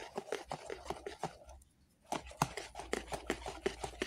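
Wire whisk stirring flour into a runny batter in a plastic bowl: quick clicking strokes, several a second, breaking off briefly about one and a half seconds in and then resuming.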